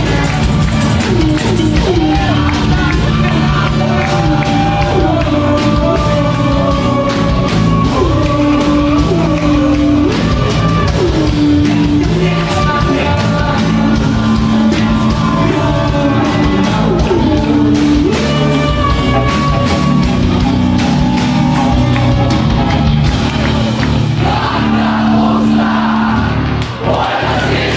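Rock band playing live, with a male singer's voice sliding and wavering over steady drums.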